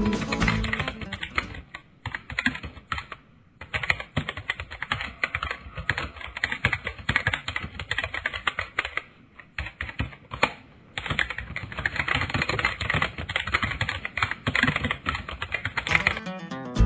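Computer keyboard typing: rapid, irregular key clicks in runs, pausing briefly twice. Music fades out in the first second or two.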